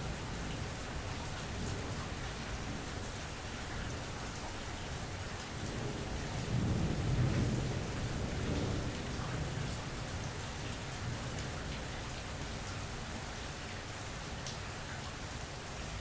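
Steady rain falling, with rolling thunder. A low rumble builds about six seconds in, peaks, then fades away over the next few seconds.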